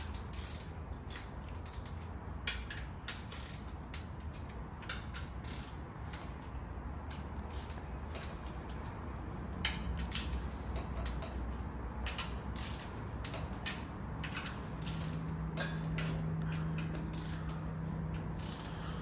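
Torque wrench ratcheting in irregular runs of clicks as the new stock torque-to-yield cylinder head bolts on a GM LY5 5.3 L V8 are run down to the first torque step of 22 foot-pounds.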